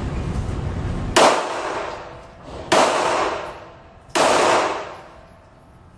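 Three gunshots about a second and a half apart, each trailing off over about a second.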